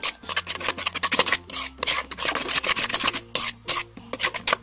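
A spoon stirring glue slime in a stainless steel bowl, scraping against the metal in quick repeated strokes, about three a second, as laundry-detergent activator is mixed in.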